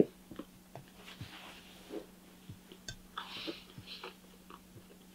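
A man chewing a mouthful of red-caviar sandwich with small wet mouth clicks and a couple of soft breaths through the nose, after a short thump at the start. A faint steady hum runs underneath.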